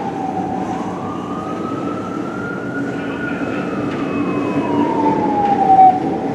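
Fire engine siren in a slow wail: it falls, rises over about three seconds, then falls again, loudest at the low point near the end. Steady traffic rumble runs underneath.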